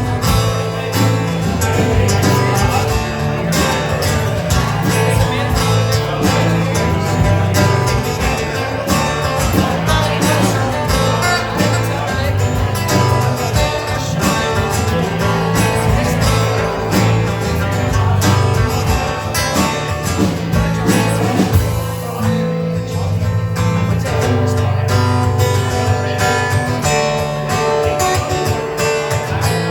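Instrumental break in a country-style song, led by guitar over a steady band backing, with the sound briefly thinning about 22 seconds in.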